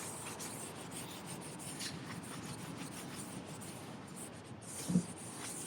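A rag scrubbing the EPDM rubber roof membrane with cleaner: a steady rubbing, with a brief thump about five seconds in.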